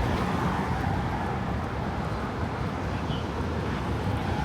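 Steady outdoor rumble of street traffic mixed with wind buffeting the microphone.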